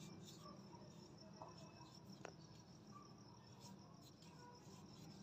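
Near silence with a cricket chirping faintly in a rapid, even, high-pitched pulse.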